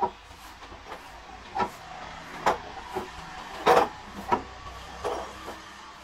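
Sawmill machinery: a low steady engine hum with irregular knocks and clanks over it, the loudest a little past the middle.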